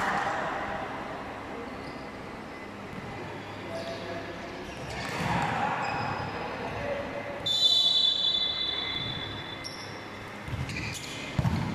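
Basketball game sounds: ongoing voices and murmur with a ball bouncing, and a whistle blast lasting over a second about seven and a half seconds in. A couple of knocks come near the end.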